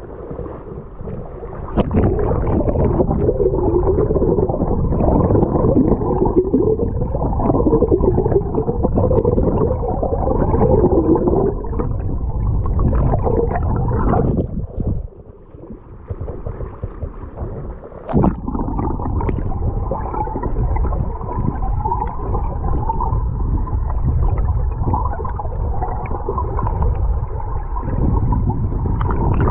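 Muffled rushing and gurgling of stream water heard through a GoPro's waterproof housing. It fades for a few seconds about halfway through and comes back with a sharp knock.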